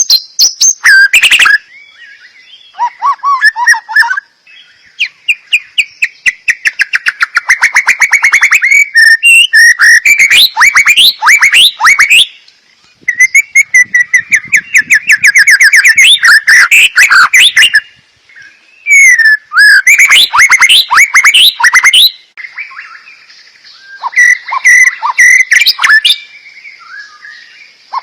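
A songbird singing close and loud in full, agitated song: phrases of rapid trills, repeated whistled notes and quick up-and-down sweeps, broken by short pauses.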